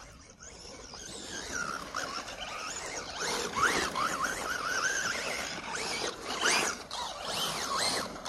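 Electric RC rally car converted to rear-wheel drive, running on grass: its motor and drivetrain whine, rising and falling quickly in pitch as the throttle is worked. The sound grows louder from about a second in as the car comes close.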